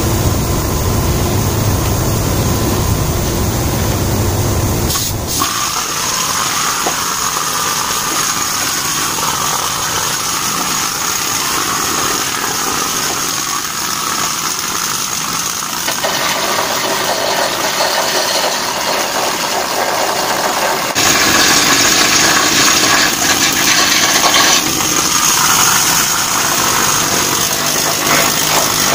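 Pneumatic rust-chipping tool hammering rapidly against the steel of a ship's gangway, knocking off rust. The sound is loud and continuous and changes character abruptly twice.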